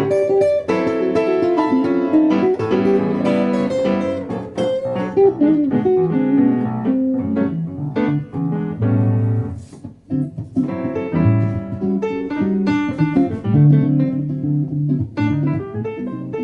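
Guitar playing a blues instrumental passage, picked melody notes over a lower bass line, with a brief drop in level about ten seconds in.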